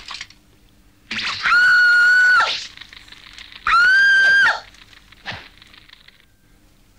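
A cartoon bird screaming twice, each a long, high cry held at a steady pitch, about a second in and again near four seconds. A short click sounds at the very start.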